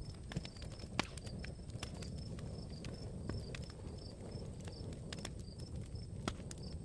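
Quiet night ambience of a crackling campfire, with irregular sharp pops over a low rumble, while crickets chirp steadily at a high pitch.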